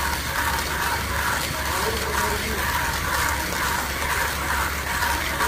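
1Zpresso hand coffee grinder being cranked, its burrs crunching through roasted coffee beans in an even rasping rhythm of about two strokes a second.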